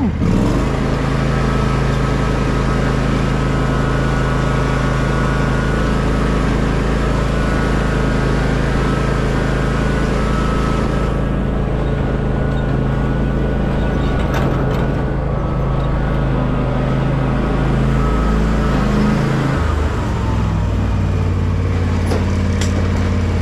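Small tractor engine running steadily while driven, its note shifting briefly about twenty seconds in.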